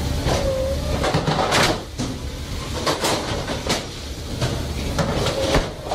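Steady rumble of fish-processing machinery with repeated clattering knocks of frozen fish blocks on steel frames and conveyors. There is a brief squeak of metal near the start and again near the end.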